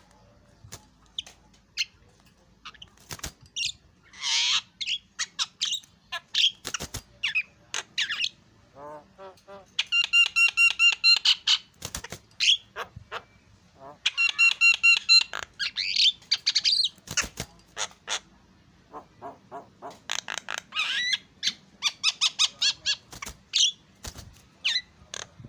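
Javan myna singing a varied song of short chirps, clicks and harsh notes, broken about ten seconds in and again about fourteen seconds in by louder, fast runs of ringing repeated notes.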